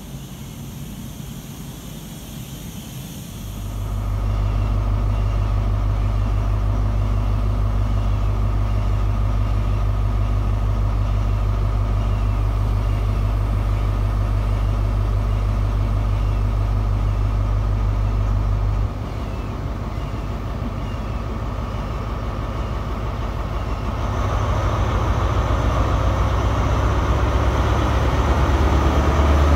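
Class 43 HST power car's MTU diesel engine running with a loud, steady deep hum, after a few seconds of quieter hiss. From about three-quarters through it grows louder and rougher as the engine powers up and the train pulls away.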